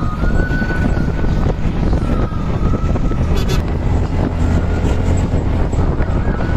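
Auto-rickshaw running along a road, heard from inside the passenger cabin: a steady low engine rumble with road and wind noise. A thin high whine comes and goes over it, and there is one short sharp rattle about halfway through.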